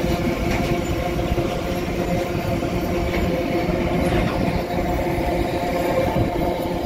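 Container freight train's flatcars rolling past: a steady, continuous rumble of steel wheels on the rails, with a faint steady hum under it.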